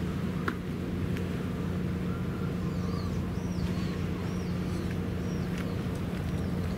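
A steady low machine hum, with a bird giving a run of short, arched chirps, about two a second, from about three seconds in.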